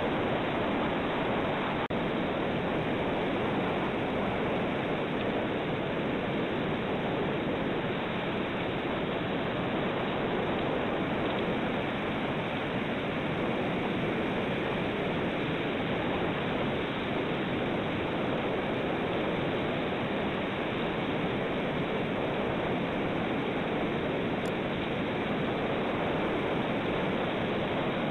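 Steady, even rushing noise picked up by the outdoor microphone of a cliff-top eagle nest camera above the sea, with no eagle calls.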